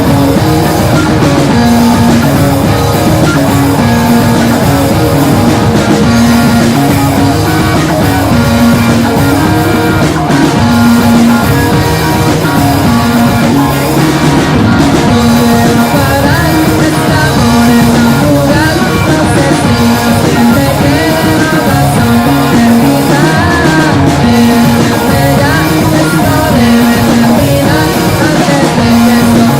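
Live rock band playing a loud, full arrangement: two electric guitars, electric bass and drum kit, built around a repeating riff.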